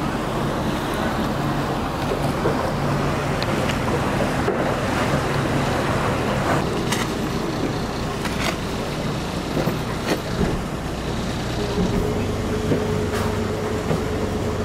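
Speedboat engine running steadily under way, with the rush of water along the hull. There are a few sharp knocks in the middle, and a steady higher hum joins about three-quarters of the way through.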